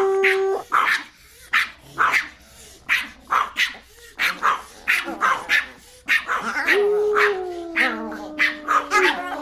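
Small dogs barking over and over in short, sharp barks, about two a second. From about seven seconds in, a long, steady, slightly falling tone runs beneath the barking.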